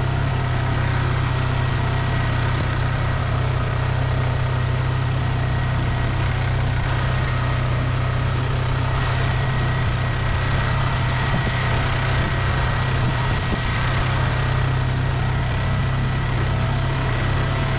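1986 Ford 1710 tractor's three-cylinder diesel engine running steadily while the tractor is driven, heard from the driver's seat. The engine note stays even throughout, with no revving.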